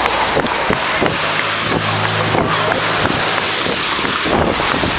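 Wind buffeting the microphone of a camera carried by a runner, with running footfalls about three a second. A passing car's engine hums briefly about two seconds in.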